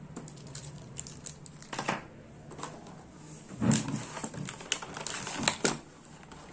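Plastic packaging crinkling and rustling as small camera accessories are handled, with scattered clicks and taps; the rustling comes in a few short spells, the loudest about four seconds in.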